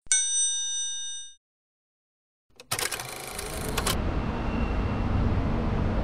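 A short, bright chime rings out and fades within about a second and a half. After a second of silence comes a brief burst of noise, then steady outdoor background noise with a low rumble.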